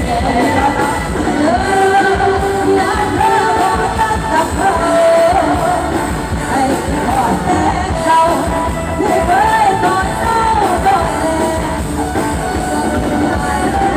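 Loud live band music with a woman singing a melody into a microphone, amplified through the stage PA speakers of a Thai rot hae sound truck.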